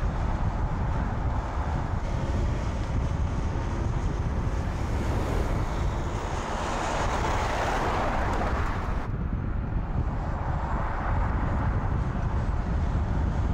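Volkswagen Tayron SUV driving along the road, a steady wash of tyre and engine noise with wind rumbling on the microphone. The noise swells and then changes abruptly about nine seconds in.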